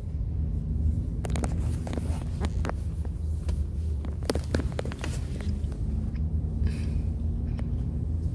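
Steady low rumble of a moving vehicle heard from inside the cabin, engine and road noise, with a few short clicks and brief squeaks in the middle.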